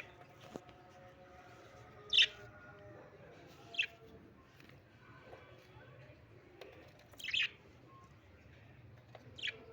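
Pet parrots giving four short, shrill chirps a couple of seconds apart, the first the loudest.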